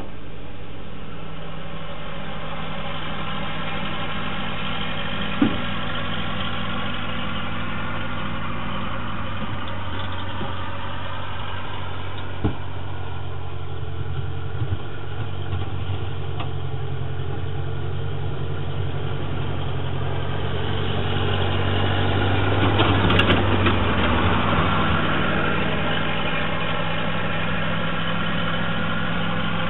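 Ferguson TEA 20 tractor's four-cylinder petrol engine running steadily at low speed while it works a rear snow bucket, growing louder about two-thirds of the way through as the tractor comes close. Two short sharp knocks sound, about five and twelve seconds in.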